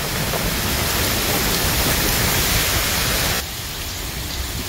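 Heavy wind-driven rain in a severe thunderstorm, a dense, loud, steady hiss. About three and a half seconds in it drops abruptly to softer rain splashing on pavement.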